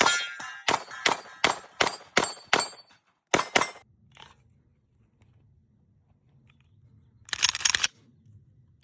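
Staccato HD C4X 9mm pistol firing a string of about nine sharp shots over the first four seconds, ending with a quick pair, with some ringing after the early shots. A short, loud, rapid clatter of sharp cracks follows near the end.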